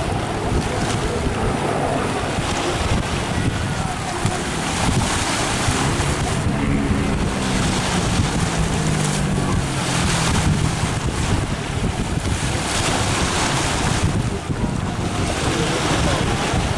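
Piston-engine propeller aircraft passing, its engine drone falling in pitch in the middle stretch. Heavy wind buffeting on the microphone runs underneath throughout.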